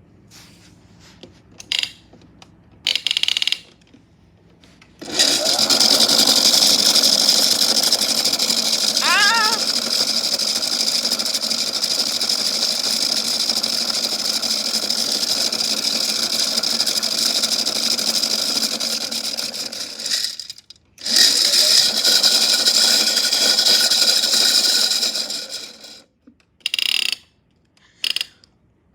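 Small electric motor of a toy washing machine loaded with chains, running with a steady high whine. It stops briefly about three-quarters of the way through, runs again for a few seconds, then stops, with a few short separate sounds before it starts and after it ends.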